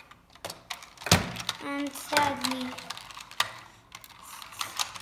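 Sharp plastic clicks and knocks from a Buzz Lightyear action figure being handled, the loudest knock about a second in, with a short child's vocal sound in the middle.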